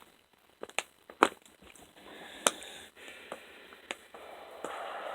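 Sharp plastic clicks and knocks as a fidget spinner is handled and set on a plastic water bottle's cap, with stretches of steady rushing noise as it spins there, the longest in the last second or so.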